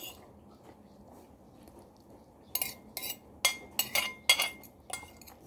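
Metal spoon and fork clinking and scraping against a plate while eating: quiet at first, then a quick run of sharp clinks with brief ringing in the second half.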